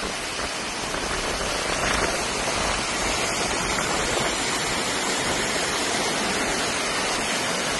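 Floodwater pouring over a broken pavement edge into a sunken pit below: a steady rushing of water.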